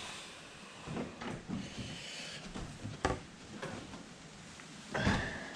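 Scattered light knocks, scuffs and clicks of someone moving about and handling things over an engine bay, with a sharp click about three seconds in and a louder knock near the end.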